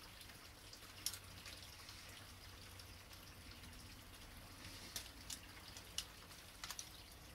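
A handful of small sharp clicks and taps as a fishing reel is worked off the reel seat and clips of a collapsible fishing rod, one about a second in and several more between about five and seven seconds, over quiet room hum.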